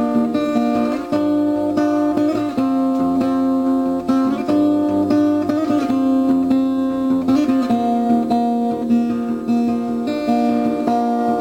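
Background music led by a plucked acoustic guitar, with notes changing every second or so.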